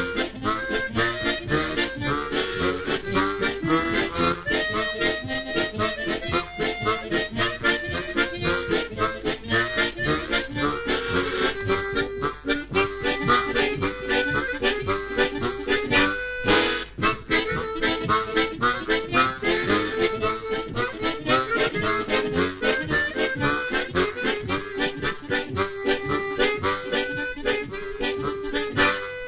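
A harmonica trio playing a lively Romanian hora, including one long multi-row harmonica, a sustained melody over a quick, steady chord rhythm.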